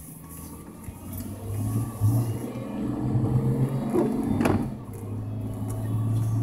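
Car engine heard from inside the cabin, pulling away and accelerating. Its hum grows louder about a second and a half in, dips briefly just past the middle, then runs on steadily.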